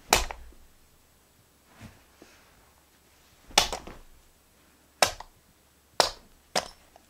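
A hand slapping down onto a carpeted floor beside a plastic push button: five sharp slaps spread out, the first the loudest and the last two about half a second apart.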